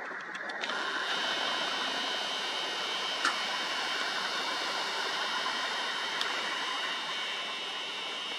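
Nikon Coolpix P1000 camera's zoom motor whirring steadily as the lens zooms out, starting about half a second in, over a steady hiss. One brief click about three seconds in.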